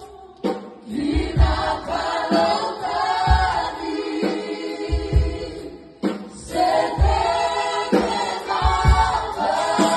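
Mixed choir of sopranos, altos and tenors singing a Fijian gospel hymn medley through hand-held microphones, with low thuds underneath and brief pauses between phrases.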